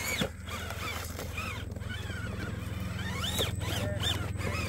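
Scale RC rock crawler's electric drive motor and gearing whining in short rising-and-falling bursts as the throttle is worked on the climb, over a steady low hum, with a few sharp clicks.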